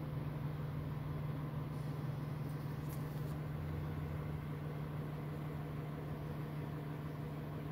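Freightliner SD garbage truck with a McNeilus packer body running in the street, a steady low drone heard muffled through a closed window.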